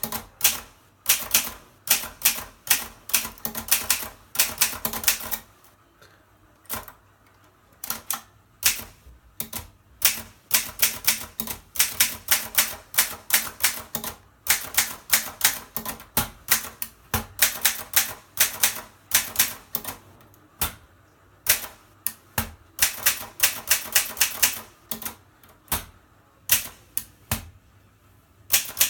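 Mercedes K45 manual portable typewriter being typed on: runs of sharp key strikes, several a second, broken by short pauses, the longest about six seconds in.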